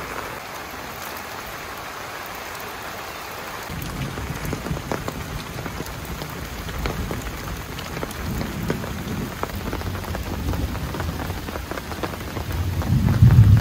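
Steady rain falling, with many small drops pattering. From about four seconds in a low rumble joins under it, growing loudest near the end.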